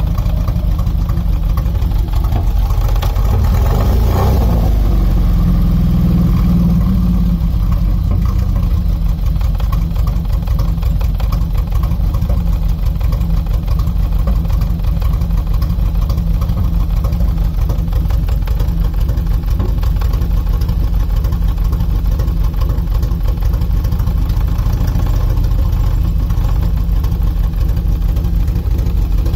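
Opel 2.0 CIH engine running with a misfire. Its speed rises for a few seconds near the start, then it settles back to a steady idle.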